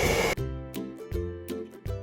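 A hair dryer's steady blowing cuts off abruptly about a third of a second in. Background music with a steady beat takes over.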